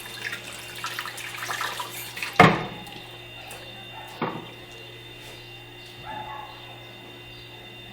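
Kitchen handling noises: a rustling hiss for about two seconds, then a sharp knock and, under two seconds later, a smaller one.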